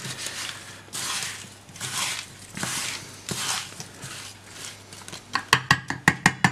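Diced watermelon rind and sugar being stirred in a stainless steel bowl with a wooden spatula: a wet, gritty swish about once a second, then a quick run of sharp clicks of the spatula against the bowl near the end.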